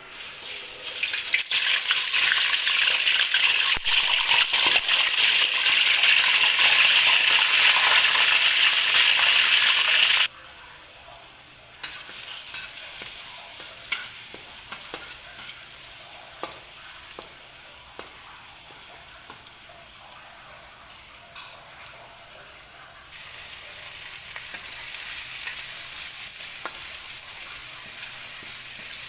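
Food sizzling in hot oil in a pan while being stirred. The sizzle is loud for the first third, then drops abruptly to a quieter frying with scattered utensil clicks. Brighter sizzling starts again suddenly about three-quarters of the way through.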